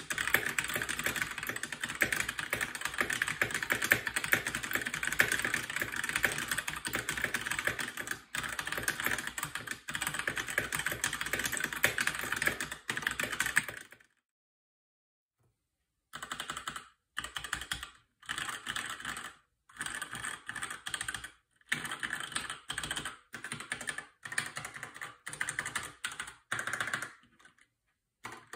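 Logitech K845 mechanical keyboard with stock TTC Red linear switches typed on fast and without a break for about fourteen seconds. Then come a couple of seconds of dead silence, then typing in short bursts with brief silent gaps between them.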